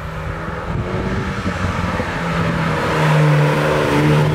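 Alpine A110's 1.8-litre turbocharged four-cylinder accelerating as the car approaches and drives past, its engine note growing louder. The pitch dips briefly about three seconds in, as it goes by, then climbs again.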